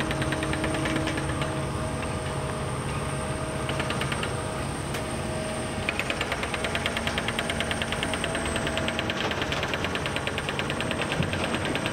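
Kobelco SK 260-10 excavator's diesel engine running steadily, with a rapid, even clatter over the engine note.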